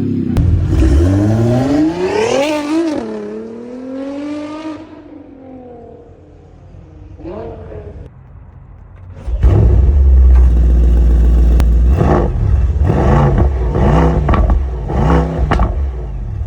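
Car engine revving: pitch climbs sharply and falls back in the first few seconds, then quietens. From about nine seconds in, a loud engine is revved again and again in quick blips.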